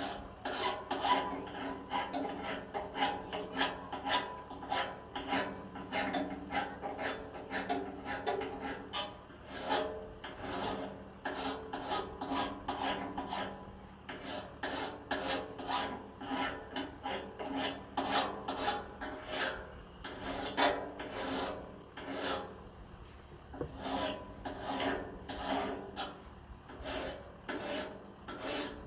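Hand metal file rasping along the single-bevel edge of a lopper blade, at about two strokes a second with a steady ringing tone beneath: the blade being sharpened.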